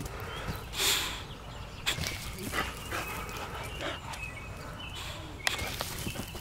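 A boxer dog running and playing close by, making short dog noises, with a loud rushing noise about a second in and a couple of sharp thumps.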